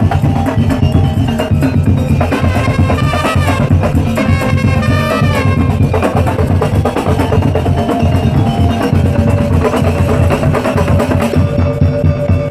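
Madurese daul music played loud: a dense, driving drum beat with a melodic line sliding up and down above it.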